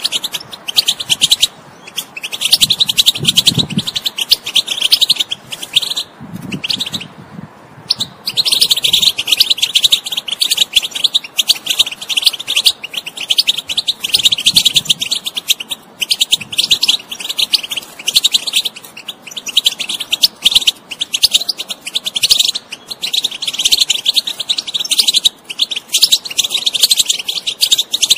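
European goldfinch song: a fast, continuous run of twittering chirps and trills, broken briefly about six to eight seconds in.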